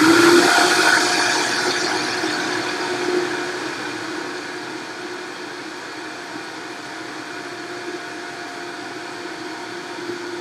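Countertop blender running on high, turning a thick cashew ranch dressing smooth: a steady motor hum with a whirring wash over it, loudest at the start and easing over the first few seconds. The speed was raised because a rattle meant the cashews were not yet fully blended.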